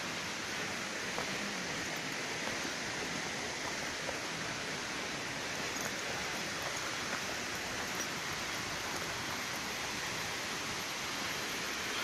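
Steady, even rushing of water from a waterfall and stream, with no change in level.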